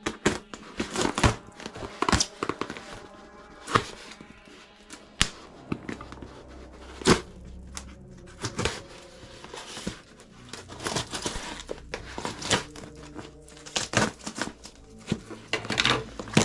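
Scissors cutting through a parcel's packing-tape wrapping, with the tape and plastic crinkling and tearing in irregular sharp crackles and clicks as the package is handled.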